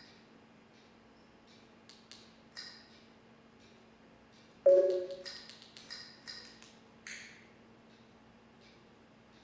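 XBMC media-center menu navigation sounds: a series of short clicks as the selection steps through the menu list, with a louder low blip about halfway through followed by a quick run of ticks.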